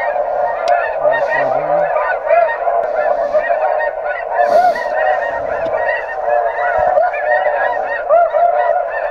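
Dense, unbroken chorus of many snow geese calling over one another, played through an electronic goose caller's speakers to lure a circling flock.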